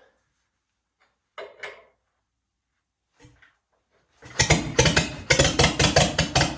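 Ford flathead four-cylinder engine being cranked over about four seconds in, a loud, fast and uneven run of pulses lasting about three seconds, as it is started on starting fluid.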